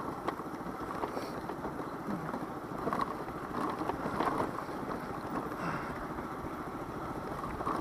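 Daelim Witty 100 small scooter riding downhill on a rough village road: the small engine runs with a steady rough rumble of tyres and road, dotted with small irregular knocks from the surface.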